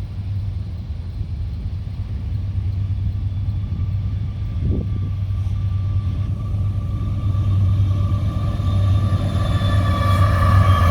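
Union Pacific diesel freight locomotives approaching, a steady low rumble that grows gradually louder. Faint high tones at several pitches come in during the second half and drift slightly lower.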